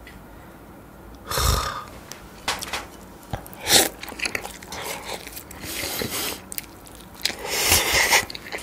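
A person slurping and chewing instant ramyeon noodles coated in melted cheese. There are three loud slurps, about one and a half, four and eight seconds in, with wet chewing and mouth clicks between them.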